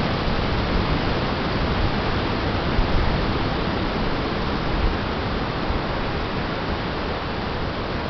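Steady rushing noise of ocean surf mixed with wind buffeting the microphone.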